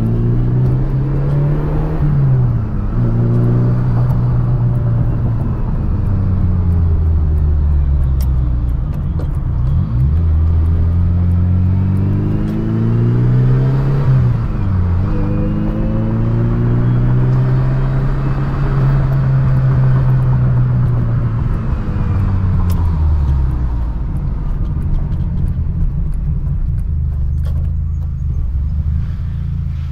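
Ferrari 328 GTB's 3.2-litre V8 running under way, its pitch climbing and then dropping sharply several times as the car accelerates and changes gear. Over the last several seconds it settles to a low steady idle.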